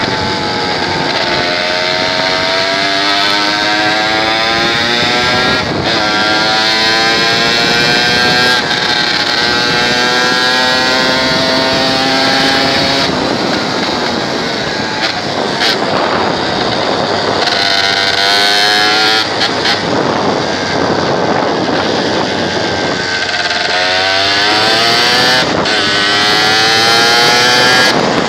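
Motorcycle engine under way, its pitch climbing and breaking off again and again as it shifts up through the gears, dropping off in the middle as it slows and climbing again near the end. Wind rushes steadily over the microphone throughout.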